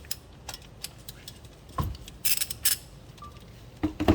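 Metal hand tools clicking and clinking at the oil pan as the drain plug is worked loose, with a dull knock just before two seconds in and a brief scraping rush just after.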